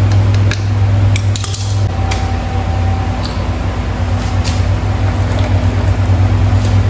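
Scattered metal clicks and clinks of pliers on a new motorcycle O-ring drive chain as it is fitted, then the chain running over the sprockets as the rear wheel is spun by hand. A steady low hum sits underneath.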